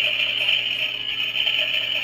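A toy play-kitchen stove's electronic cooking sound effect playing through its small speaker: a steady hiss with a faint quick pulsing underneath.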